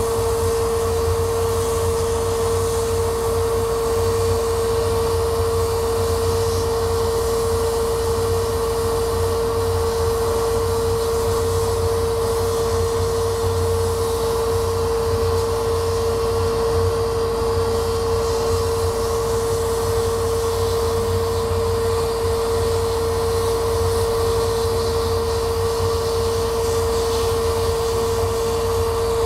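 Laser cutter running as it cuts a wooden sheet: a steady blower-like whir with one constant mid-pitched hum, unchanging throughout.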